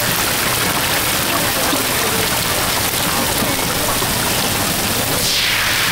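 Oyster omelettes and eggs sizzling on a large flat-top griddle: a steady, dense hiss. About five seconds in, a surge of hiss sweeps downward in pitch.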